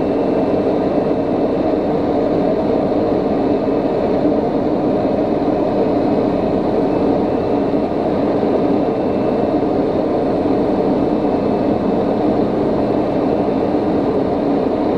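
Steady cockpit drone of a TBM850 in flight on approach: its single Pratt & Whitney PT6A turboprop engine and propeller running at an even power setting, mixed with airflow noise over the cabin.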